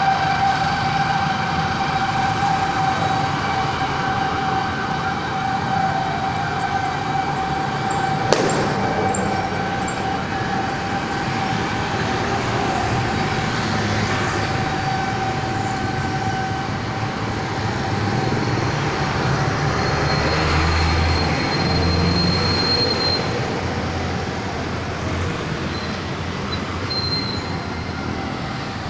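City street traffic: a constant hum of vehicles, with a steady, even-pitched whine through the first half and one sharp click about eight seconds in. A vehicle passes with a low rumble about twenty seconds in.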